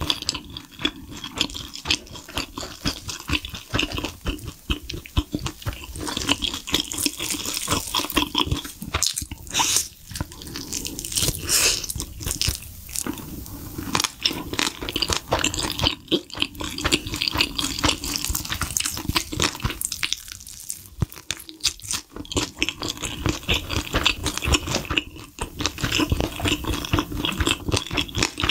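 Crunching bites and chewing of sauce-coated fried chicken: a dense run of crisp crackles, broken by a couple of short pauses.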